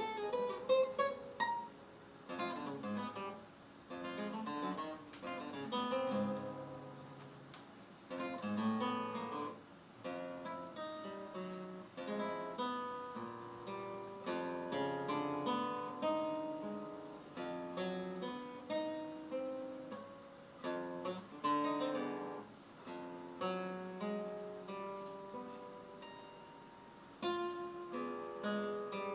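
Solo guitar playing a composed contemporary piece: a busy run of plucked single notes and chords, each attack ringing and fading, the phrases swelling and dropping in loudness.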